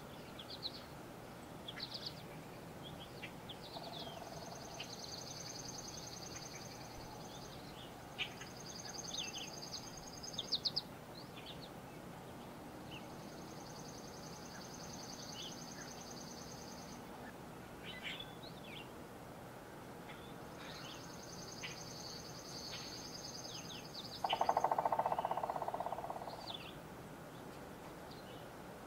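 Woodland songbirds: one repeats a high, dry trill about two seconds long four times, while others give short chirps. About 24 seconds in, a loud, lower buzz lasts about two seconds and fades out.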